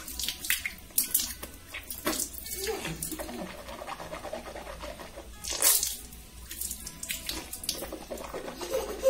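Water from a tap splashing at a sink in several short bursts.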